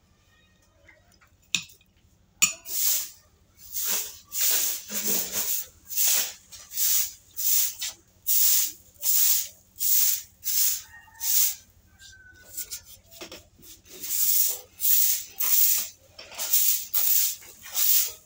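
A knife sawing back and forth through the crisp crust of a baked meat pie: two sharp taps, then a steady run of scratchy, hissing strokes a little more than one a second, with a short break about two-thirds of the way through.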